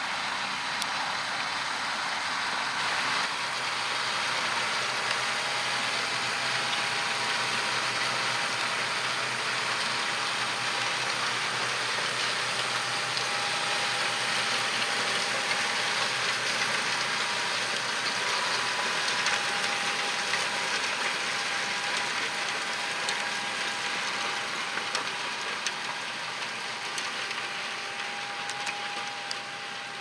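John Deere 6250R tractor's six-cylinder diesel working under load while pulling a Kverneland seven-furrow plough. A steady rushing noise carries a thin steady whine, and the sound eases slightly near the end.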